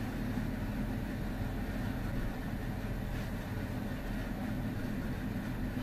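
Steady low rumble of background room noise, with no distinct events.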